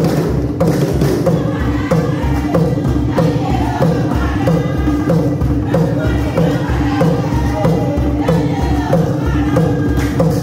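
Chewa chisamba dance music: a steady drumbeat, about two beats a second, with a group of voices singing and chanting together over it.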